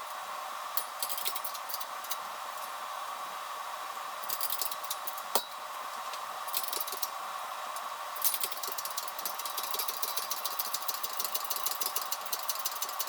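Metal parts clicking and tapping in short bursts, with one sharp knock about five seconds in, as a wheel bearing is worked into a hub, over a steady mechanical hum.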